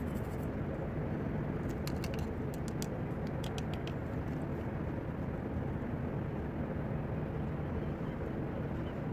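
Steady low background rumble, with a short run of faint sharp clicks about two to three and a half seconds in.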